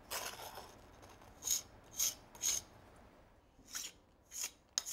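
Steel concave jointer scraping along fresh mortar joints to tool them concave: a series of short scraping strokes, about two a second, in two groups of three.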